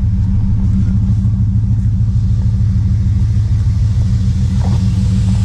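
1999 Dodge pickup truck's engine idling steadily, a constant low rumble.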